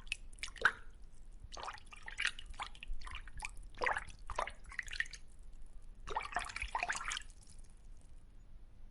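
Irregular dripping water: short, sharp plops and drips at uneven intervals, with a brief lull about five seconds in.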